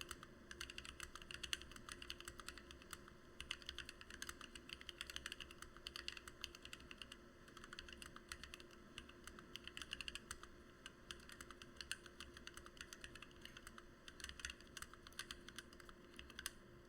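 Typing on a Lily58 split mechanical keyboard with lubed, filmed Gateron Black Ink V2 linear switches and PBT OEM-profile keycaps: fast runs of keystrokes with brief pauses, stopping just before the end.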